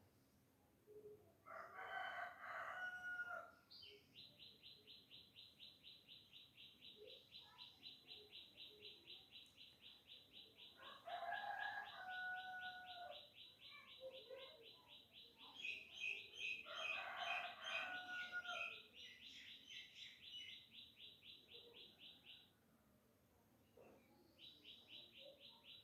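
Rooster crowing three times, each crow about two seconds long. Under the crows runs a fast, even, high-pitched chirping that stops a few seconds before the end and then starts again.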